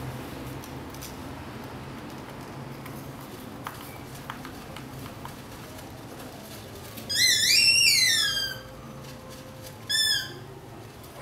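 Belgian Malinois puppy letting out a high whine that rises and then falls, about a second and a half long, followed near the end by a shorter whine, as it tugs at a rag toy.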